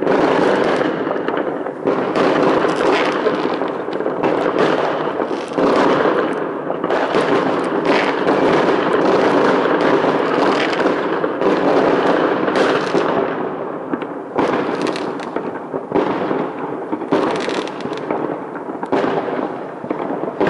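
Many fireworks bursting at once in a dense, unbroken run of overlapping bangs and crackling.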